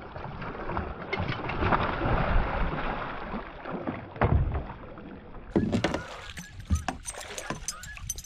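A hooked muskie thrashing and splashing at the water's surface right beside the boat as it is netted. In the last few seconds come a series of sharp clicks and knocks.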